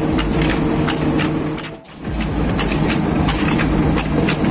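Belt-driven rice-cleaning sieve machinery running: a steady low motor hum with constant rattling ticks. The noise dips briefly just before two seconds in, then carries on.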